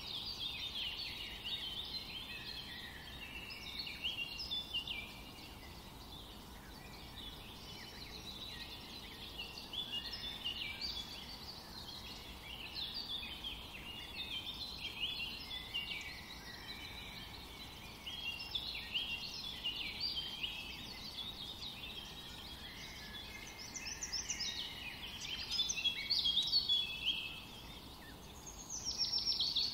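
A chorus of small birds chirping, many short high calls overlapping continuously, a little louder near the end.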